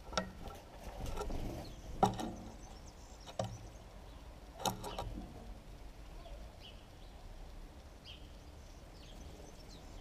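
House sparrow pecking at feed in a shallow dish: a few sharp single taps over the first five seconds, with a short rustle about a second in. Later only faint, brief high chirps.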